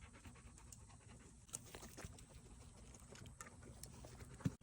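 Near silence: a faint background with a few scattered soft clicks and rustles, a slightly sharper tap near the end.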